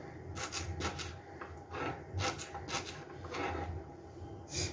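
Kitchen knife chopping peeled fresh ginger on a wooden cutting board: a run of irregular short knife strokes against the wood, with a sharper stroke near the end.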